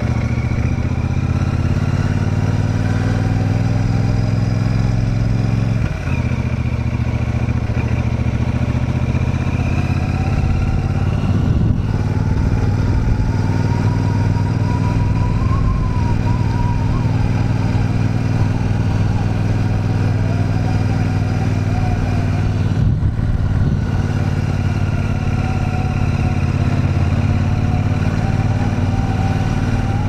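Royal Enfield Super Meteor 650's 648cc parallel-twin engine and exhaust running steadily as the motorcycle rides along a street. The steady engine note breaks briefly about 6, 12 and 23 seconds in.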